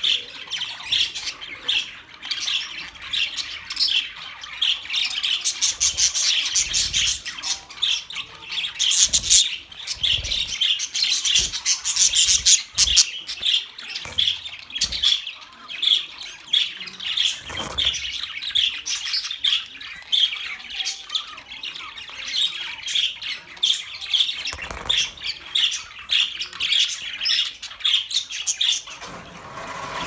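A flock of budgerigars chattering without pause: many overlapping chirps, warbles and harsh squawks.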